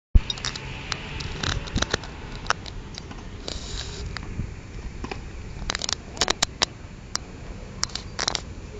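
Handling noise from a handheld camera: irregular clicks, rubs and crackles over a low steady rumble, with a sharp click right at the start.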